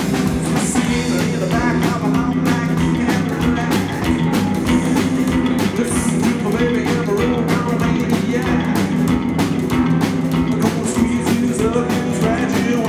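Live rockabilly band playing: upright double bass, electric guitars and a drum kit keep up a steady, driving beat.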